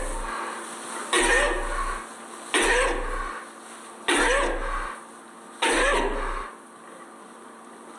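A sheep in a sneezing fit: four sharp sneezes about a second and a half apart, each starting suddenly and dying away, followed by a pause of a couple of seconds near the end.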